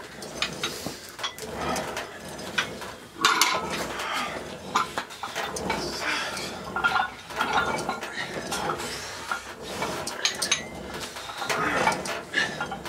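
Metal clinking and clanking from a cable row machine, its handle and weight plates knocking irregularly through repeated pulls.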